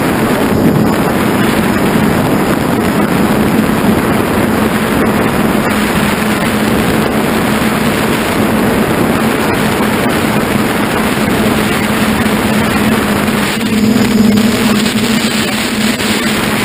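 FPV drone's motors and propellers running steadily in flight, heard from its onboard camera with wind rush over the microphone and a steady hum. The sound swells briefly near the end.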